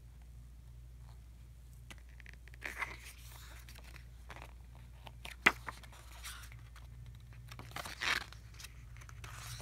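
Thick glossy photo-book pages being turned and handled: several brief paper swishes and scrapes, with one sharp click just past halfway, the loudest sound.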